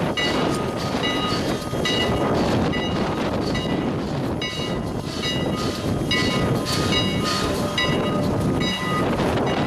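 Canadian National 89, a 2-6-0 Mogul steam locomotive, on the move: the train's running noise with a bell ringing steadily, about one stroke every two-thirds of a second.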